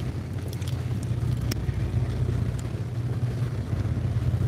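Fishing boat's engine running steadily, a low even hum, with a few faint clicks over it.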